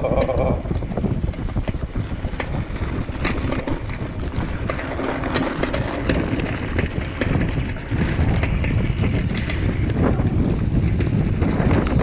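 Wind buffeting the microphone as a BMX bike rolls fast along a bumpy dirt track, with many small knocks and rattles from the bike and its tyres over the ruts.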